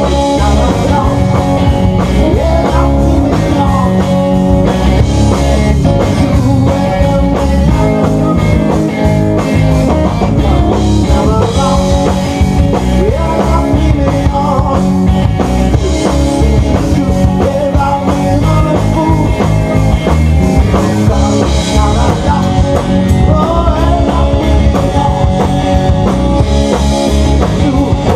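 Live rock band playing: electric guitar over bass guitar and a drum kit, at a steady full volume.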